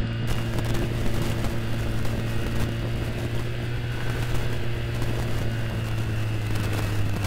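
Yamaha Vixion's 150 cc single-cylinder four-stroke engine running at a steady pace while riding, with a constant low hum under a haze of rushing noise.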